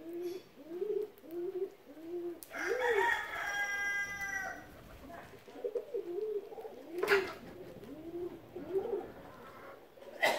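A rooster crows once, a long call starting about two and a half seconds in. Around it runs a bird's series of short, low calls, about two a second. A single sharp knock comes about seven seconds in.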